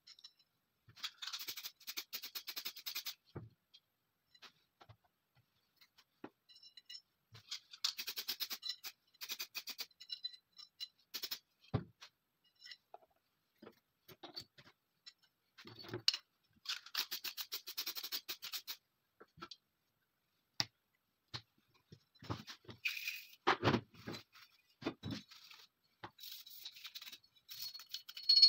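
Small steel parts of a TT pistol clicking and rattling as they are handled and set down, in bursts of quick clicks a second or two long with short quiet gaps between them.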